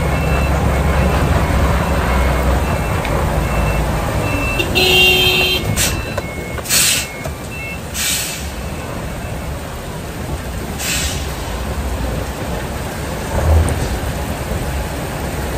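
Diesel engine of a tractor-trailer working hard as it reverses up a slope, then easing off after about three seconds, under heavy rain hissing on the cab. Short beeps of the reversing alarm and several short hisses of air from the truck's brakes sound over the rain.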